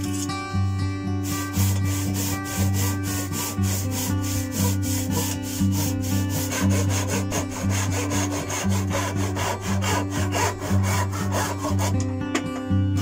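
A wooden-handled handsaw cutting oak by hand in a steady rhythm of rasping strokes, starting about a second in and stopping near the end. Soft acoustic background music runs underneath.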